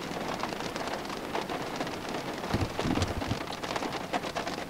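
Heavy rain falling on a car, heard from inside the cabin: a dense, irregular patter of drop hits, with a few deeper thuds a little past the middle.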